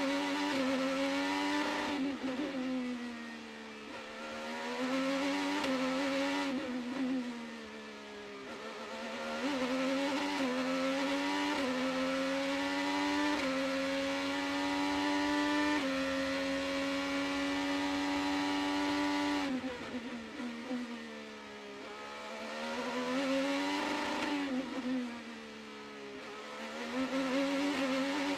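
Race car engine at high revs. The pitch climbs in steps through upshifts and drops away four times as the car slows, each time rising again.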